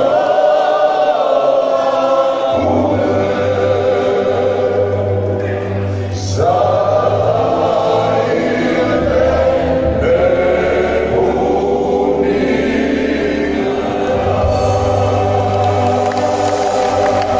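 Croatian klapa male vocal ensemble singing a slow song in close multi-part harmony with sustained chords, backed by a live band; a low bass line comes in about two and a half seconds in. Heard through the PA from the audience.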